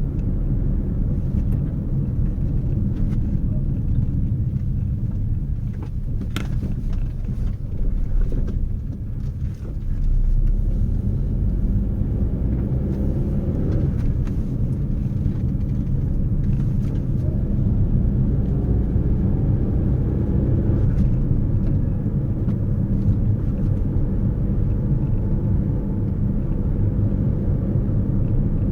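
Steady low rumble of a moving motor vehicle, with a few faint rising engine tones near the middle.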